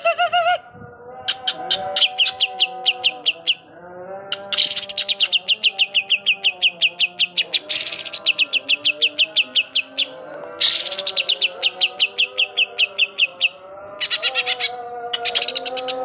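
Green leafbird (cucak ijo) singing: repeated fast trills of sharp chirps, about five trains, each a few seconds long and falling slightly in pitch, in its mimicry of the kapas tembak bulbul's call.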